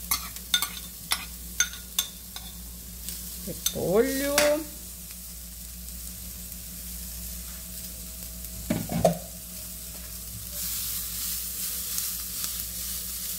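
A metal spoon knocks sharply about seven times against a bowl and frying pan in the first couple of seconds, scraping shredded cabbage into hot oil. Near the end, stirring in the pan with a sizzle of frying that grows louder.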